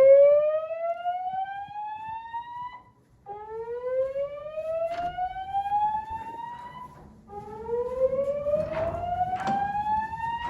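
Voice-evacuation fire alarm system sounding a slow whoop tone through its speakers: three long rising sweeps, each climbing in pitch over about three and a half seconds, with a short break between them. A few faint knocks sound in the background.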